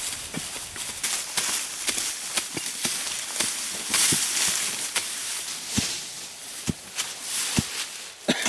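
Rustling and crunching in dry bush vegetation, with irregular sharp snaps and knocks.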